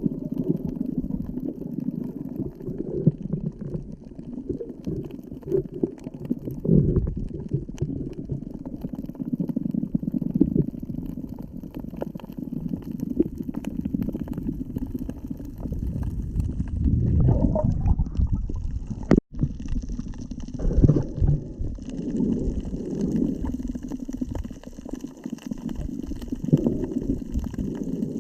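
Muffled low rumbling and sloshing of seawater moving around a GoPro camera in the sea, with a brief cut-out about two-thirds through.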